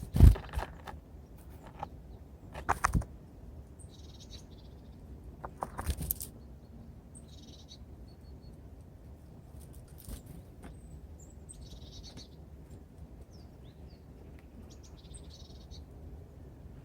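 Small birds at a winter feeder: a few loud knocks and taps against the feeder in the first six seconds, and short high calls that come four or five times.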